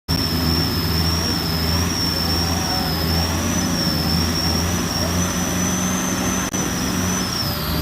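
Off-road 4x4's engine running hard under load while climbing a sand hill, a steady low drone with a thin, slightly wavering high whine over it.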